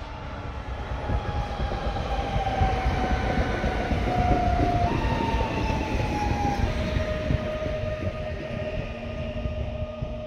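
Electric multiple unit passing at speed on curved track. The rumble of wheels on rail swells to a peak about four seconds in, then fades as the train moves away, with a high whine that drops in pitch as it goes by.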